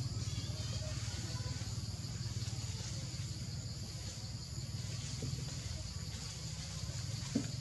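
Steady insect buzzing over a continuous low hum, with one brief knock near the end.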